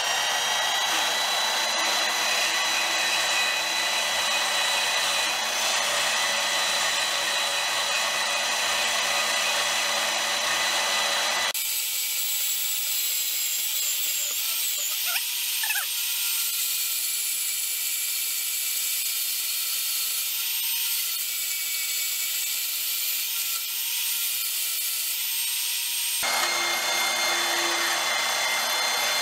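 Milwaukee Portaband portable band saw running steadily with a bimetal blade, cutting through a metal flat bar. The sound thins out abruptly about twelve seconds in and comes back fuller near the end.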